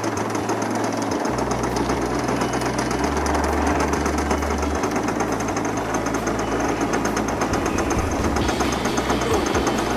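O.S. GT22 22cc single-cylinder two-stroke gasoline engine running steadily in an RC model plane, its rapid firing even throughout.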